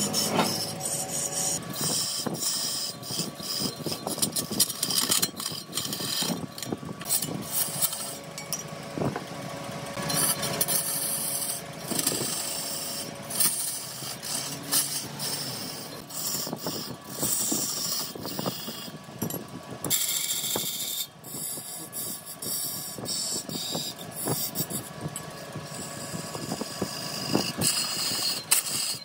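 Wood lathe turning, with a tool cutting and scraping against the spinning wood. It makes an uneven rasping hiss broken by many small clicks and knocks, over a faint steady hum.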